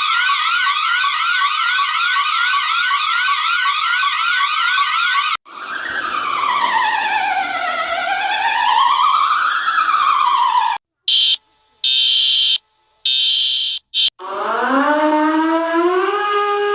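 Electronic emergency alert alarm tones, cut back to back. First comes a fast rising sweep repeated about two to three times a second. About five seconds in it switches to a slow siren wail that falls and rises again, then to loud high beeps broken by short gaps, and near the end to a tone that climbs in steps.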